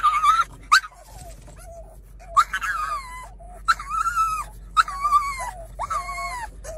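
A pug whining in a series of short, high, wavering cries, about one a second, over the low steady hum of the car it sits in.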